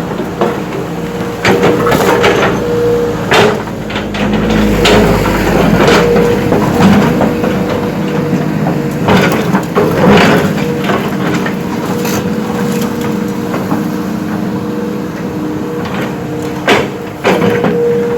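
Heavy diesel earthmoving machine running steadily while rock clatters and cracks in repeated sharp impacts, as stone is scooped and dumped.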